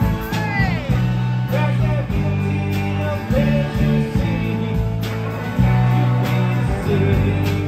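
A live rock band playing: electric guitars, electric bass and drum kit, with heavy sustained bass notes and a steady drum beat.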